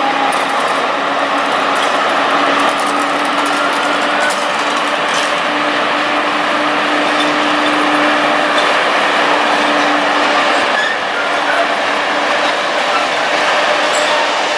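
PKP ET22 electric freight locomotive hauling a train of open coal wagons past at low speed, just after starting off: a continuous running noise of motors, wheels and rattling wagons, with a steady drone held at one pitch.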